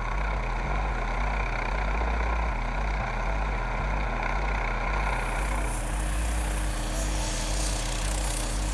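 MQ-8 Fire Scout unmanned helicopter hovering: the steady, rhythmic beat of its rotor blades over a running turbine engine. A brighter rushing hiss joins about five seconds in.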